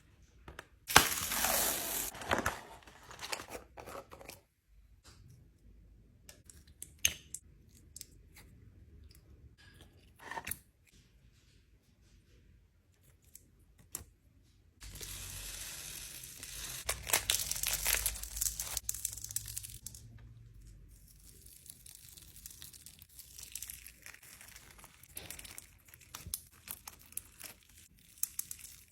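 Store-bought slime squished and stretched by hand, giving crackly, sticky clicks and pops. The crackling is loudest about a second in and again about halfway through, with scattered softer clicks in between.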